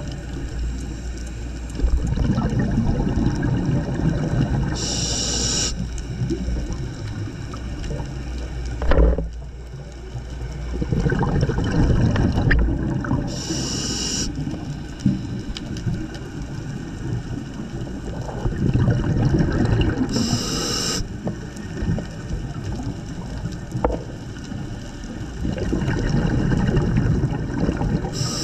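Scuba diver breathing through a regulator underwater: a short hiss of inhalation every seven to eight seconds, between long rumbling gurgles of exhaled bubbles.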